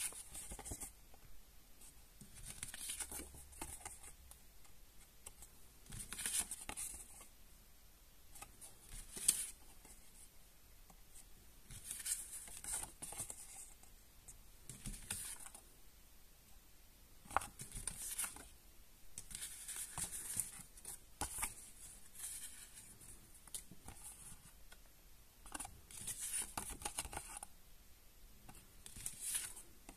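Small printed paper cards being handled one by one: repeated brief rustles and scrapes of card sliding against card and fingers, every second or two, with a few sharp taps.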